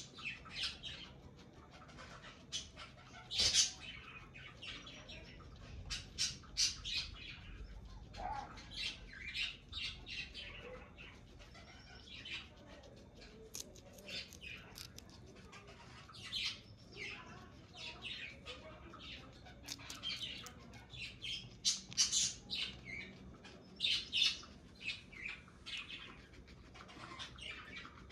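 Guinea pig biting and chewing a fresh green bean: a quick, irregular run of short, crisp crunches.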